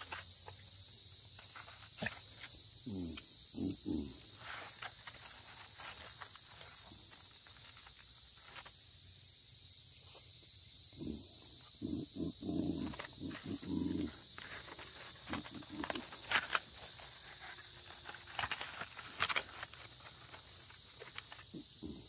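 Steady high-pitched chorus of insects in the woods, with scattered crinkles of aluminium foil and clicks of a knife as the foil-wrapped cabbage is opened and cut.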